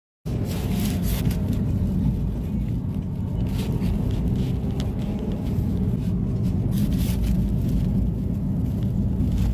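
Car driving, heard from inside the cabin: a steady low rumble of engine and road noise, with a few brief hissy swells. It starts abruptly just after the beginning.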